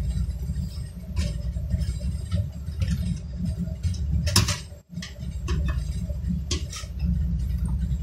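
Small clicks and knocks of hands handling a desktop motherboard and its Intel stock CPU cooler while fitting the cooler's fastenings, with one sharper click about four seconds in. A steady low rumble runs underneath, and the sound drops out briefly just before five seconds.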